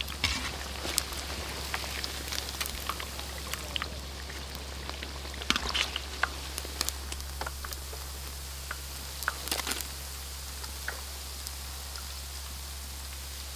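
Chicken wings deep-frying in a wok of hot oil: a steady sizzle with scattered pops and crackles, bunching into louder crackling twice in the middle.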